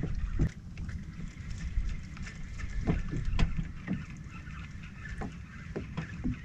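Small waves lapping and slapping against a fishing kayak's hull, with wind rumbling on the microphone and scattered light knocks.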